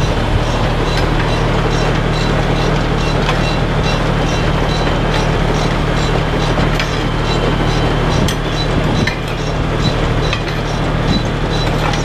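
Tractor engine running steadily under load, driving a self-loading forage wagon's pickup and conveyor, with a continuous mechanical clatter and regular sharp clicks.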